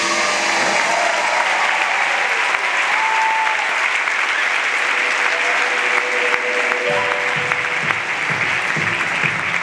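Large theatre audience applauding, a dense steady clapping. About seven seconds in, music comes back in underneath.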